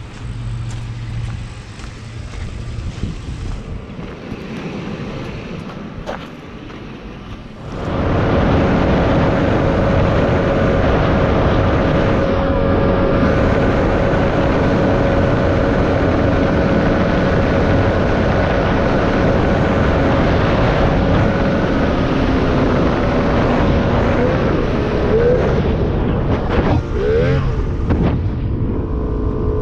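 Boat motor running, jumping to full throttle about eight seconds in and then holding a loud, steady drone, with wind buffeting the microphone.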